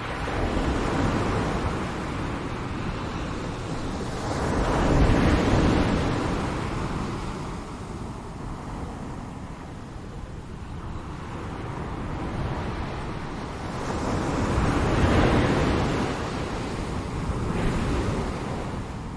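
Ocean waves breaking and washing in, a steady rush that swells and ebbs. Two bigger surges come about ten seconds apart.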